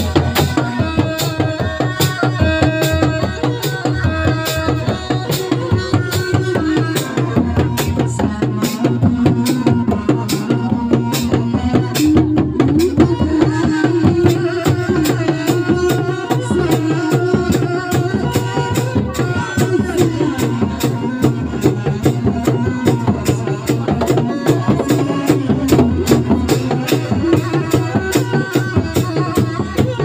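Sundanese reak music: dogdog drums beating a fast, dense rhythm, with a melody line stepping and wavering above it.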